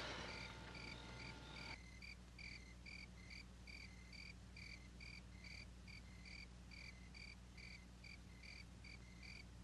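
Crickets chirping faintly in a steady, even rhythm, about two to three chirps a second, over a low steady hum. A faint held tone stops about two seconds in.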